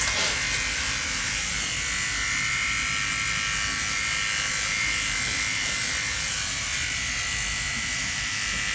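Electric dog-grooming clipper running steadily with a constant high whine as it is worked through a dog's coat.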